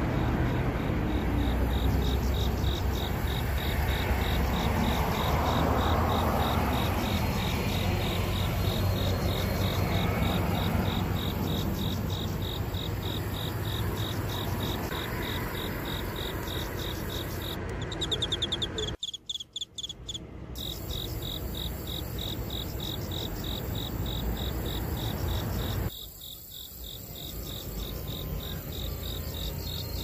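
Cricket-type insect chirping: a high, evenly pulsed trill that keeps going steadily, over a low background rumble that cuts out briefly about two-thirds of the way through and fades again near the end.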